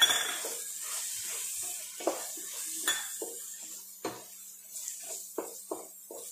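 Onion and tomato masala sizzling in a pot while a wooden spatula stirs it, scraping and knocking against the pot about every half second. The sizzle fades over the few seconds.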